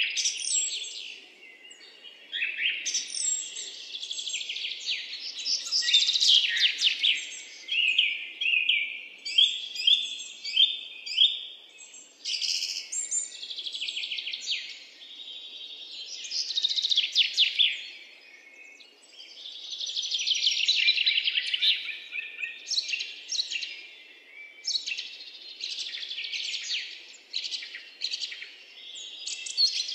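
Songbirds chirping and trilling: a dense chorus of quick, high repeated notes and rapid trills, overlapping with brief lulls.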